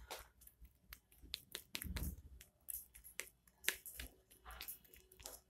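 Metal spoon stirring thick jam in a small plastic cup, with irregular clicks and short scrapes as it knocks and rubs against the cup's sides.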